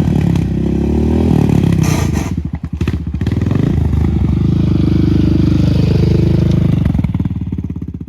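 Yamaha Raptor 700R's single-cylinder four-stroke engine running hard as the quad is ridden. It eases off about two and a half seconds in, then pulls steadily again and fades near the end.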